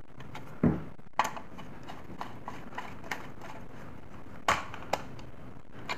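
Screwdriver and fingers working a terminal screw on a plastic switch board as a wire is fastened: scattered clicks and small knocks, with two sharper knocks, one under a second in and one about four and a half seconds in.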